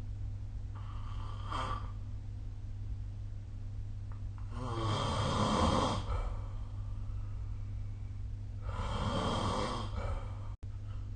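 A sleeping person snoring: two loud snores about four seconds apart, with a fainter breath about a second in. A steady low hum runs underneath.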